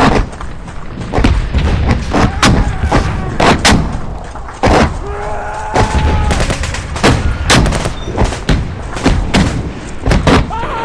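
Battle sound effect: dense gunfire, with many sharp shots cracking several times a second over a steady low rumble. A held, pitched tone sounds for about a second around the middle.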